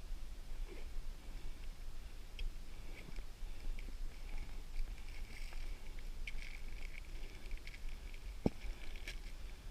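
Faint rustling with scattered soft ticks and clicks, and one sharper click about eight seconds in, over a low rumble.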